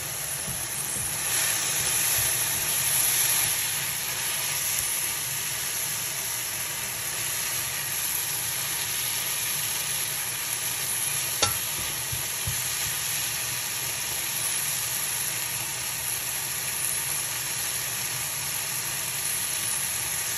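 Shrimp in tomato sauce sizzling steadily in a nonstick frying pan, a little louder for a couple of seconds near the start. A spatula stirs through the sauce, with one sharp tap against the pan about halfway through.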